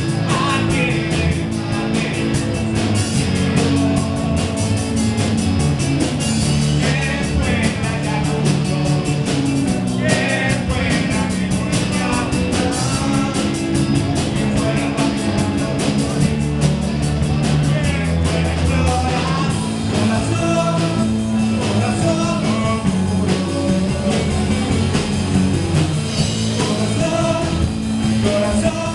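Live rock band playing a cover song: electric guitar, acoustic guitar and drum kit, with a male voice singing over them.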